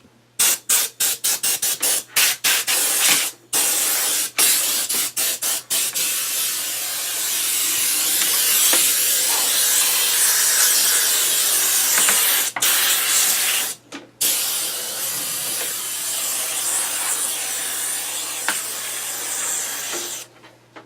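Air compressor blow gun blowing compressed air to clear dust off a desk: first a quick run of short blasts, then long continuous blasts with two brief breaks.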